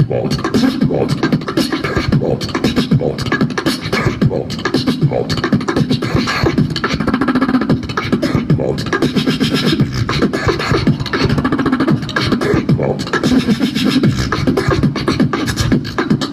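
Beatboxing into a handheld microphone and out through stage speakers: a fast, dense run of kick, snare and hi-hat clicks over a continuous low bass line.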